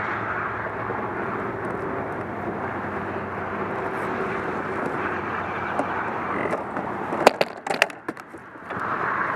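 Steady rushing noise of wind and water with a faint low hum under it. A quick run of sharp knocks about seven seconds in, and the rushing dips for a moment before it returns.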